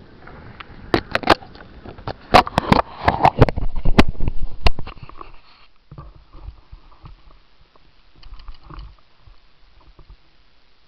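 Close handling noise on the camera and the plastic kayak it sits on: a run of sharp knocks and clicks with rubbing over the first few seconds, then fainter scattered ticks and rustling.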